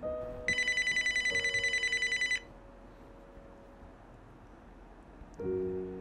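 Mobile phone ringing: one fast, bell-like trill lasting about two seconds, starting about half a second in. Soft sustained piano notes sound underneath.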